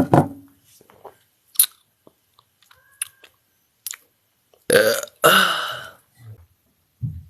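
A woman burping loudly: a short burp right at the start, then a second, longer burp about five seconds in that falls in pitch. Faint clicks come in between.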